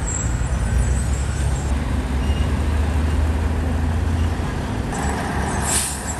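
Diesel engine of a heavy TADANO truck crane running steadily, its low note easing about four seconds in, with a short hiss near the end.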